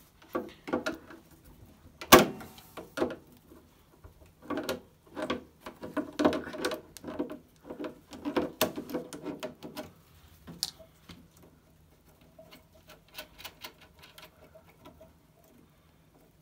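Hand tool clicking and scraping on the nut of a washing machine's heating element as it is worked loose: a run of sharp metallic clicks and knocks, the loudest about two seconds in, busiest through the middle and thinning out near the end.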